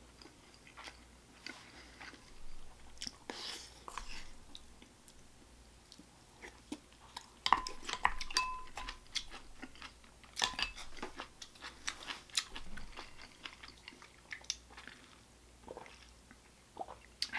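A person chewing food close to the microphone, with repeated short mouth clicks and smacks. About eight seconds in, a spoon clinks against a ceramic bowl with a brief ring.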